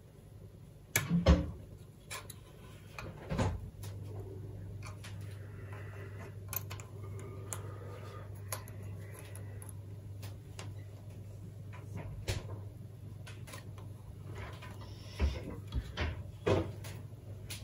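Scattered knocks and taps of hands and a soldering iron working inside a plastic project box while wires are soldered to its SO239 socket, the loudest about a second in and a cluster near the end. A steady low hum sets in a few seconds in.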